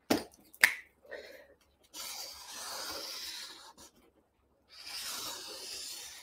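Felt-tip marker drawing on a paper pad: two strokes of about two seconds each as circles are drawn. Two sharp clicks come just before them, within the first second.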